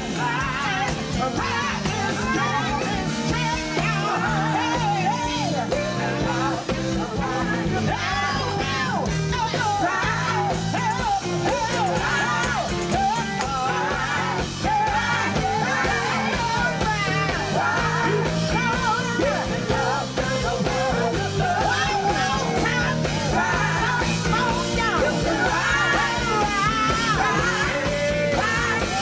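Live band music with several voices singing and shouting together in gospel-soul style, and a tambourine shaken along.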